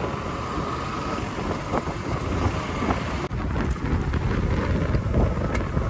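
Wind rushing over the microphone of a moving motorcycle, with the bike's engine and road noise underneath. The sound breaks off for an instant a little past halfway and carries on.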